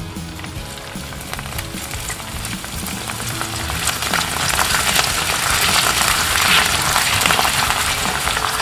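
Dried shrimp chips (prawn crackers) frying in hot oil. The sizzle grows louder about halfway through as the chips puff up.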